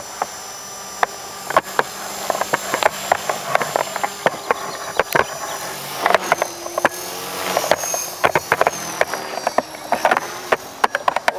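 Align T-Rex 450 electric RC helicopter in flight, its motor and rotor whine rising and falling in pitch as it manoeuvres, with a low rotor hum underneath. Frequent sharp clicks sound over it.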